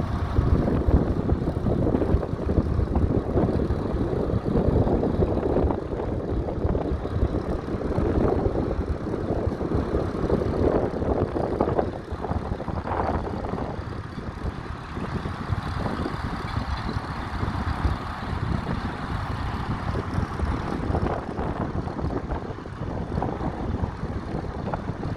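Fordson Model N tractor's four-cylinder engine running with a rapid, even firing beat; it becomes quieter about halfway through.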